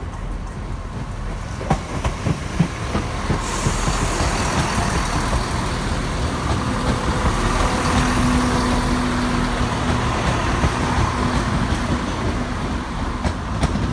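ScotRail Class 170 Turbostar diesel multiple unit pulling away and passing close by, its underfloor diesel engines running under power with a steady drone. A few sharp wheel clicks over rail joints come about two seconds in, and the noise grows as the carriages go past.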